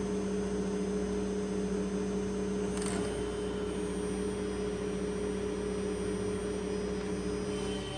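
Shop dust-collection vacuum on a CNC router's dust boot, running with a steady hum.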